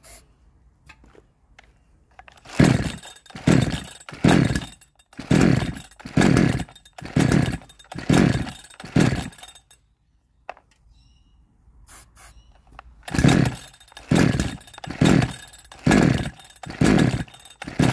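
A 62cc Chinese chainsaw being pull-started on its recoil starter: two runs of quick pulls, about eight then six, with a short pause between, the engine turning over on each pull but not catching. The owner puts the failure to start down to a weak spark and ignition timing that is too far advanced from a mismatched coil.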